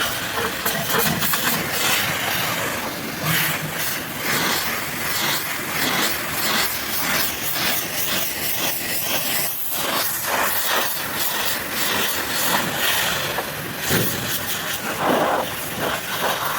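High-pressure washer jet spraying water onto a muddy truck, a loud hiss that swells and fades as the spray sweeps across the surfaces.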